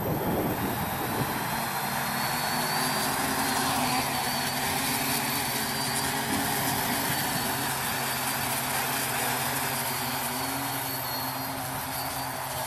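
A homebuilt quadcopter's four electric motors and propellers speed up for takeoff right at the start, then run steadily with several held tones and a high whine as it flies low.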